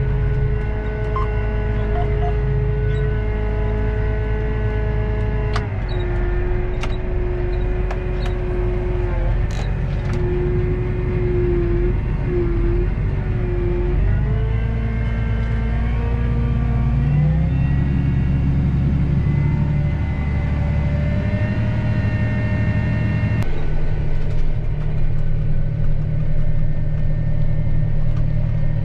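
Steady engine rumble with sustained tones above it that jump to new pitches every several seconds.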